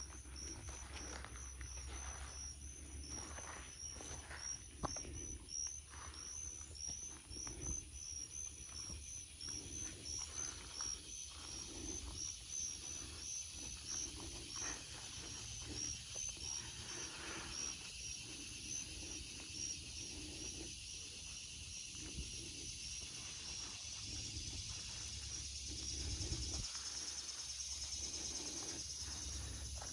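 Insects chirping in a quick regular series of high chirps that gives way to a steady high buzz in the second half, with soft footsteps through grass and sand underneath.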